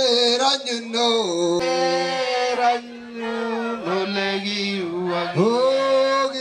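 Ogiek community group of men and women singing a traditional chant together, unaccompanied, in long held notes that change pitch in steps, with short breaks between phrases.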